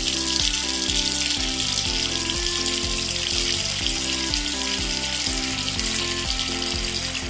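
Sound of water running from a tap, a steady hiss, added over light background music with a simple repeating tune; the water cuts off suddenly at the end.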